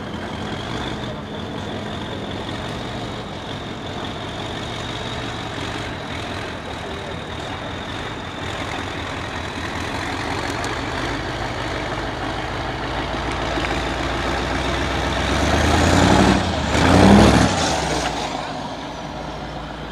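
Trial truck's diesel engine working under load while climbing a steep dirt bank, with a thin high whine over the engine note. About sixteen seconds in it revs hard in a loud surge lasting a second or two, the loudest moment, then settles.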